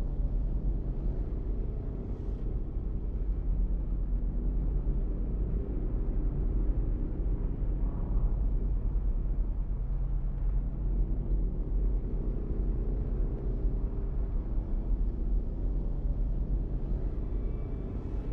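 A steady, deep rumbling drone of dark horror ambience, heaviest in the bass and without a clear rhythm or pitch.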